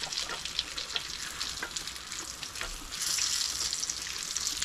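Fish cakes shallow-frying in hot butter and grapeseed oil in a skillet, a steady sizzle dotted with crackles. The sizzle grows louder for a moment about three seconds in.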